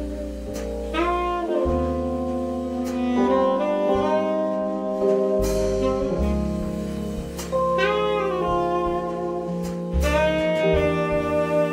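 Saxophone playing a slow ballad melody of long held notes that bend at their ends, over a walking upright double bass, with a few soft cymbal strokes.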